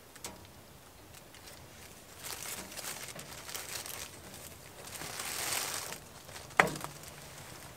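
Plastic bread bag crinkling and rustling as bread slices are taken out, then a single sharp knock with a brief metallic ring near the end as the bread goes into the frying pan on the wood stove.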